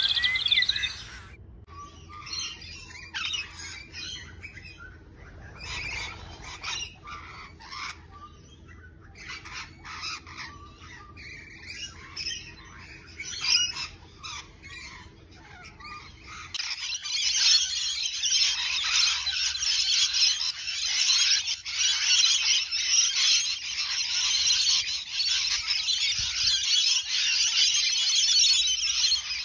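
Rainbow lorikeets calling with short, shrill screeches and chatter, in separate bursts at first. From just past halfway, a large flock chatters continuously and louder.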